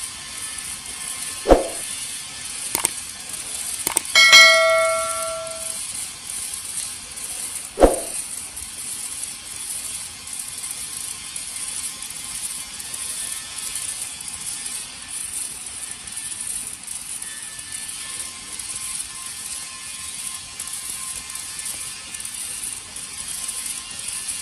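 MIG welding arc crackling steadily with a fine, rapid sputter. A few sharp metal knocks stand out, and a ringing metal clang comes about four seconds in.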